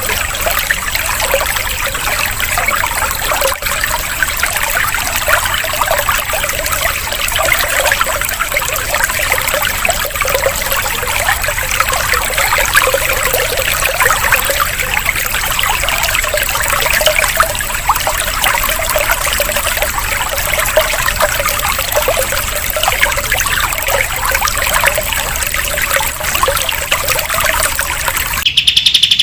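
Steady trickling, running water with a thin steady high tone underneath. Just before the end it cuts off abruptly and a green leafbird (cucak ijo) starts singing.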